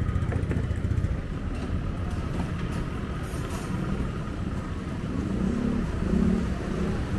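Street traffic: cars and motorcycles running past, a steady low engine rumble.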